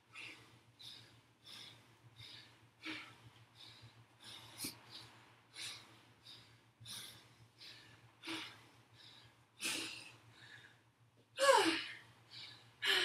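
A woman breathing hard through a dumbbell squat-and-kick exercise: a sharp exhale about every two-thirds of a second, with a louder exhale near the end that drops in pitch.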